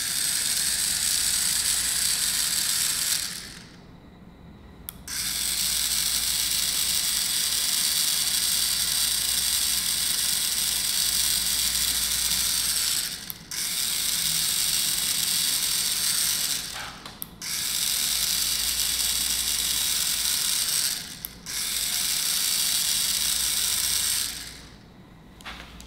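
3Doodler handheld 3D printing pen's drive motor and gears whirring as they push plastic rod through the heated nozzle. The whir runs in five stretches with brief stops between them as the feed button is released and pressed again, and it stops near the end.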